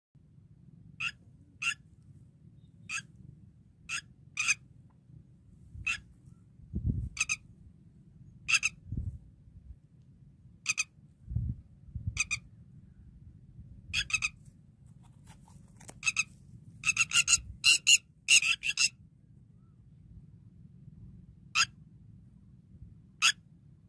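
An animal's short, high calls, repeated at irregular intervals of about a second, with a quick run of calls about three-quarters of the way through. A faint low rumble runs underneath.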